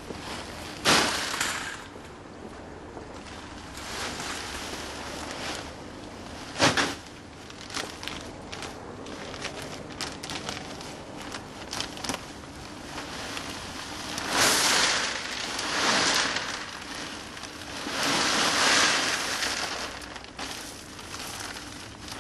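Expanded clay pebbles poured from large bags into a grow bed, a rattling hiss of pebbles, with the bags rustling. There are two short pours in the first third and two longer, louder pours in the second half.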